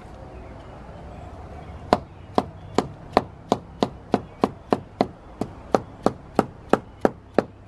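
Reused brick being struck again and again with a hand tool to knock old mortar off: sharp, evenly spaced strikes, about three a second, starting about two seconds in.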